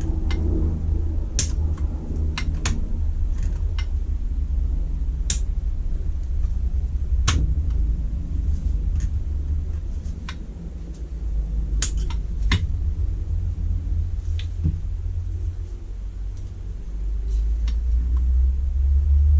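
Scattered sharp metallic clicks and clinks as a piston and connecting rod are handled and turned round, over a steady low rumble.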